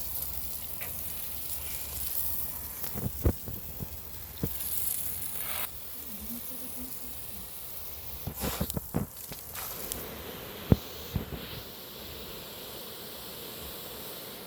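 Water hissing out of an expandable hose's spray nozzle, with a few sharp knocks; the hiss gets quieter about five and a half seconds in.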